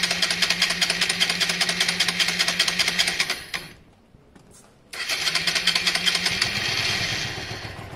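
Electric starter cranking the Honda Varadero 125's small V-twin engine in two attempts: a rapid, even churning with a steady whine underneath, about three and a half seconds, a short pause, then a second try of about two and a half seconds that fades near the end. The engine is slow to catch after a carburettor rebuild.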